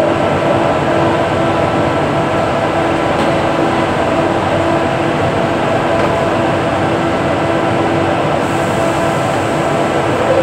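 Steady, loud mechanical drone with a constant mid-pitched hum running under it, and a faint high hiss joining about eight seconds in.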